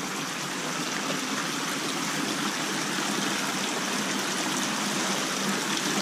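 Creek water rushing and splashing over a low concrete ledge in a culvert, a steady sound that grows a little louder toward the end.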